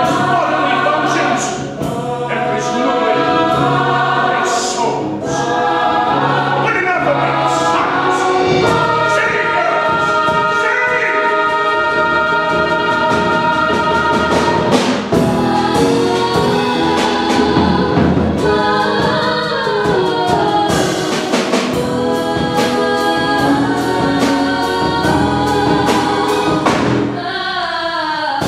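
Musical-theatre cast singing together in chorus, with accompaniment.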